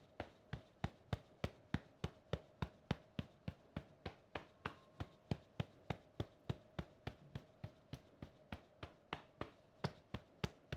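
Soft, evenly paced clicks, about four a second, over a faint steady hum.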